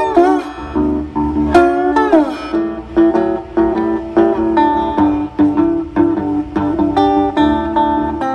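Electric guitar playing a blues lead line. About two seconds in, one bent note slides down in pitch, and a run of repeated picked notes follows.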